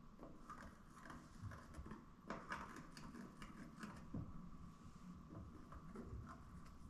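Faint, scattered clicks and taps of hand work on a truck cab's visor mounts, over a faint steady hum.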